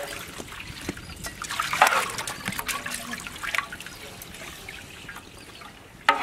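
Ladle stirring spiced water in a large aluminium pot: the liquid sloshes and trickles, with light clicks of the ladle against the metal and a louder swirl about two seconds in.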